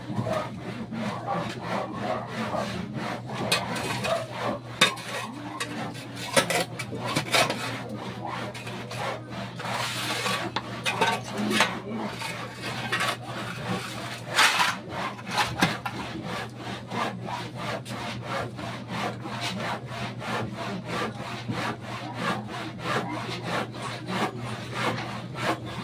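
Wood being sawn by hand in quick, steady back-and-forth strokes, with a few louder strokes along the way, over a steady low hum.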